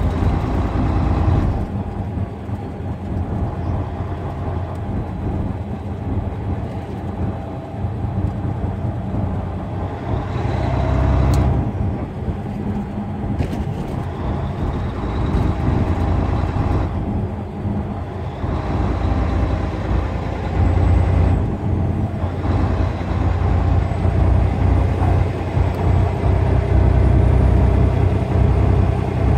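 A semi-truck driving at road speed: a steady low engine and road rumble that swells louder at times, about ten seconds in and again in the last third.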